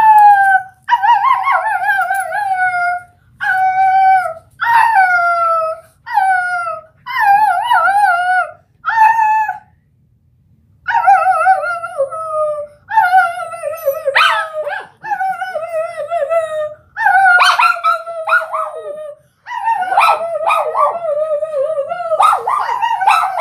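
A curly-coated dog howling along with a girl who howls to it: a long run of wavering howls, each a second or two long, with a short pause about ten seconds in. In the second half the howls overlap, with short yelps among them.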